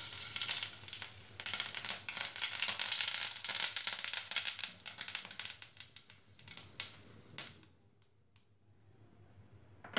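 Mustard seeds popping and crackling in hot oil as they temper in a kadai: a dense run of sharp pops that thins out after about five seconds and dies away near the end.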